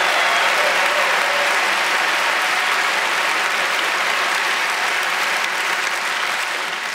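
Large audience applauding steadily, a dense patter of many hands clapping that tapers off slightly near the end.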